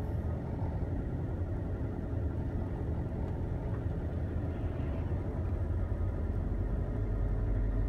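Car engine and road rumble heard from inside the cabin while driving slowly: a steady low rumble that grows a little louder near the end.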